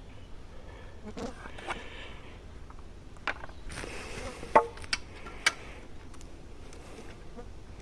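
A fly buzzing close by, coming and going, over a low background hum. A few sharp knocks and clicks are scattered through it, the loudest two about four and a half and five and a half seconds in.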